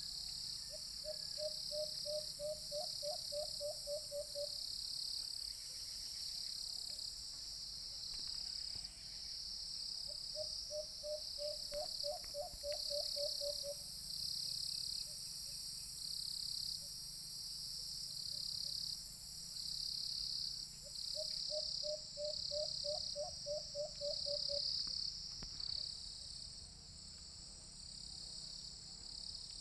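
White-eared brown dove calling three times, each call a quick run of about a dozen short, low hoots lasting three to four seconds, with a fourth run starting near the end. Behind it insects shrill in a steady, pulsing chorus that is louder than the dove.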